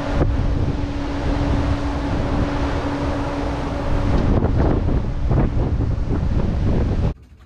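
Storm wind at sea hitting the microphone hard, with breaking waves, heard from a cruise ship's cabin balcony in the Drake Passage. A steady low hum runs under it for about the first four seconds, and the sound cuts off suddenly near the end.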